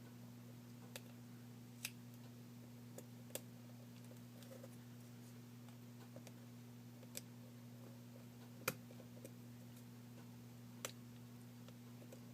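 Scattered faint clicks of a pry tool and small phone parts being handled while the LCD is worked free of its adhesive, about seven in all with the sharpest about three-quarters through, over a steady low hum.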